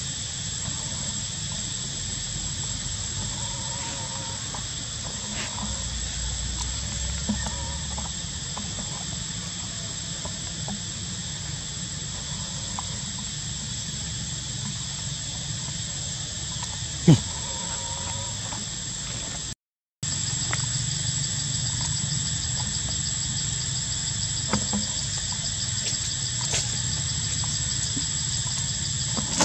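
Steady, high-pitched buzzing of an insect chorus. About twenty seconds in it breaks off briefly, then carries on with a faster pulsing buzz added; a single sharp click comes a few seconds before the break.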